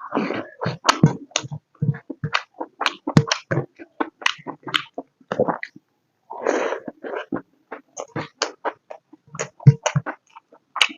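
Close-up mouth sounds of a person eating pork curry with rice: wet chewing and lip smacks, several short smacks a second at an uneven pace, with one longer noisy sound about six seconds in.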